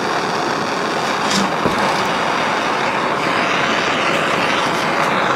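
Steady blowing hiss of a heat tool played on the butyl tape that seals a car's rear window, softening it so the glass can be freed. A small click sounds once, a little after the middle.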